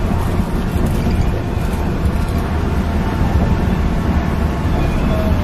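Steady low rumble of a coach bus cruising on a wet highway, heard from inside: engine drone mixed with the hiss of tyres on the rain-soaked road.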